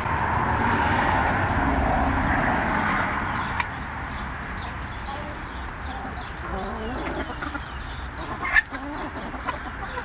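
A flock of laying hens clucking softly as they forage, with one brief sharper call near the end. A steady rushing noise sits under the first few seconds and then eases off.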